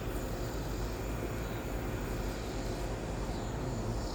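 Steady low outdoor rumble with no distinct events, like a distant engine drone.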